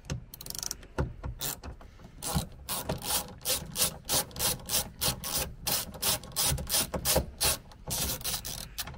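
Socket ratchet clicking in repeated short back-and-forth strokes, about two a second, as it undoes a bolt.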